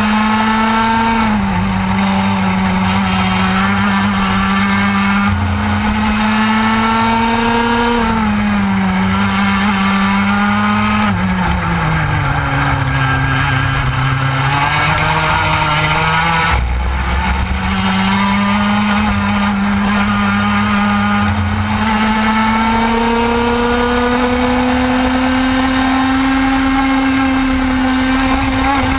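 TKM 115cc two-stroke kart engine heard onboard at racing speed, its high buzzing note climbing steadily on the straights and dropping away under braking for corners. The deepest drop comes a little before halfway, after which the note climbs steadily again until near the end.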